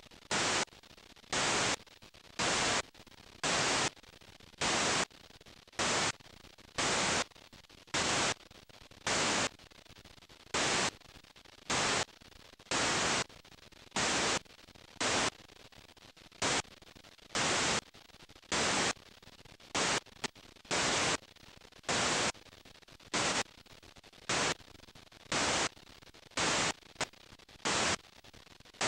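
Analog videotape playback static from a blank stretch of tape: short loud rushes of hiss, each about half a second long, coming roughly once a second at an uneven pace, with faint hiss in between.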